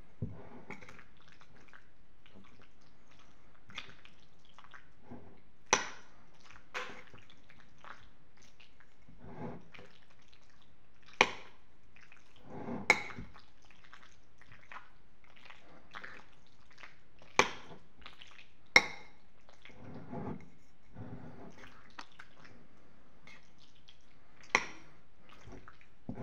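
A metal fork clinking sharply against a ceramic pasta bowl about six times while scooping creamy penne, with soft wet chewing and mouth sounds in between.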